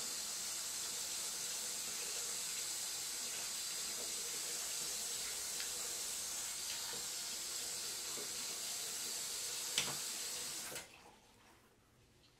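Bathroom sink tap running steadily into the basin, a hissing rush of water, then shut off about eleven seconds in. A single sharp knock sounds about a second before it stops.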